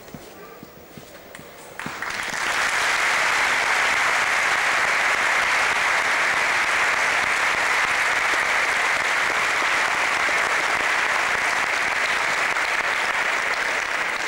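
Large audience applauding, breaking out about two seconds in and holding steady, after a few soft knocks.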